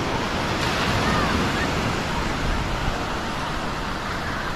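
Ocean surf breaking on the shore, a steady rushing wash of waves.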